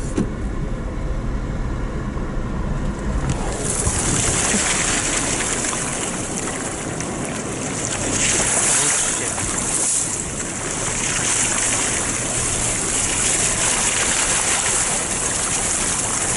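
Car engine pulling in low gear, then from about four seconds in a loud, steady rush of water spraying off the tyres as the car drives through a shallow river running over beach sand, the engine still running under it.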